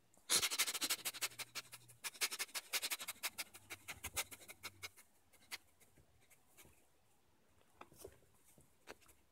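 A man sniffing in rapid short breaths, close to the microphone, in imitation of a dog sniffing: his cue to the cat that play-fighting is coming. The sniffing stops about five seconds in, leaving faint rubs and clicks.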